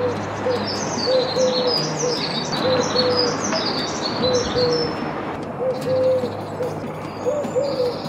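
Eurasian collared dove cooing: low three-note phrases repeated over and over. A small songbird's high twittering song runs over the first half.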